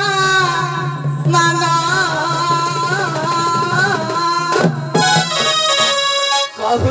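Live Odia folk stage music: a man singing into a microphone over drums and a steady low backing tone, with a few sharp drum strokes about two thirds of the way in and a brief drop near the end.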